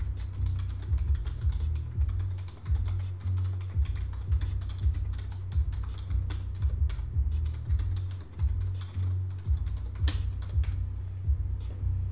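Computer keyboard typing, a quick irregular run of key clicks, over background music with a steady bass beat.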